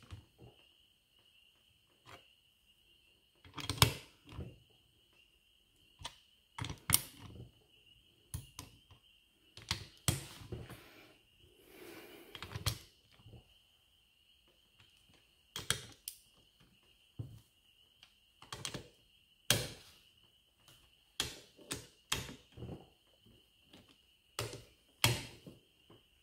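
Long torque wrench ratcheting in short strokes as bolts on an aluminium transmission case are tightened, with knocks of the wrench and socket against the metal, in bursts every second or two. A faint steady high-pitched whine runs underneath.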